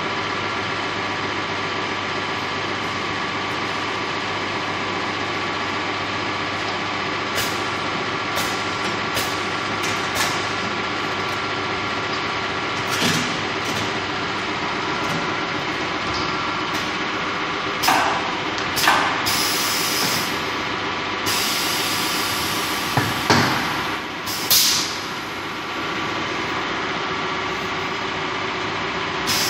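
Automated solar panel assembly line running: a steady machine hum and whine, broken by sharp clicks and short hisses of compressed air from its pneumatic actuators, the loudest of them about two-thirds of the way through.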